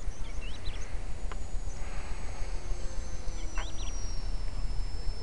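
The small model plane's high-revving engine heard far off as a thin high whine, its pitch slowly falling as it flies past, over wind buffeting the microphone. Short bird chirps come about half a second in and again near the middle.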